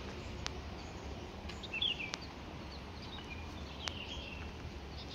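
Birds chirping outdoors in short, falling calls a few times, with a few sharp ticks over a steady low hum.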